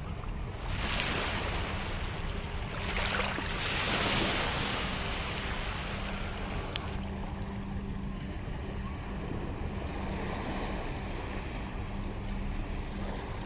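Shallow sea surf washing over wet sand, louder about a second in and again from about three to four and a half seconds, with wind on the microphone. A steady low hum runs underneath, and there is a single sharp click about seven seconds in.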